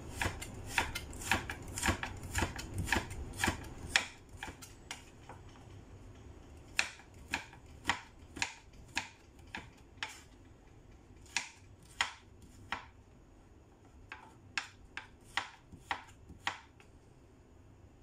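A kitchen knife slicing carrot into matchstick strips on a wooden cutting board: a run of sharp knocks, about two a second, as the blade strikes the board, coming in several runs with short pauses between.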